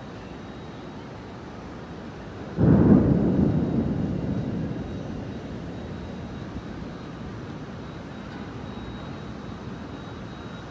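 A thunderclap about two and a half seconds in: it starts suddenly and rolls away into a low rumble over the next two to three seconds. Steady rain noise sits underneath.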